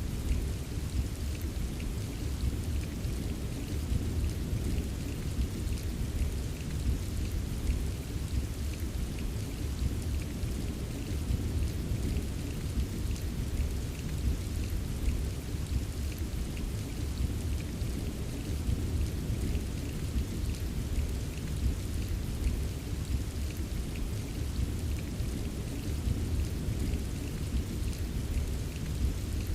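Steady rain with fine scattered drop ticks over a continuous low rumble of distant thunder, even throughout with no single loud clap.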